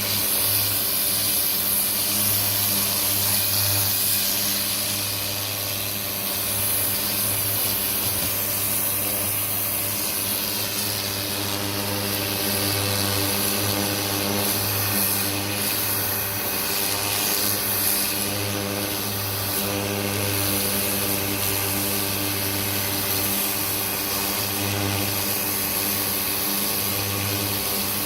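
Greenworks 1600 psi electric pressure washer running, its motor and pump humming steadily under the hiss of the water spray from the turbo nozzle.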